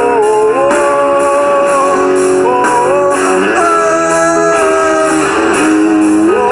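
Instrumental break in a song: a guitar plays a melody of long held notes that slide up and down between pitches, over the backing band.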